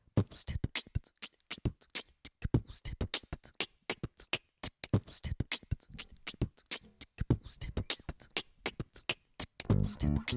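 Beatboxing into a microphone: a fast rhythmic pattern of mouth-made percussion, low kicks and sharp high clicks. Near the end a four-string Warwick Streamer bass guitar comes in with low plucked notes.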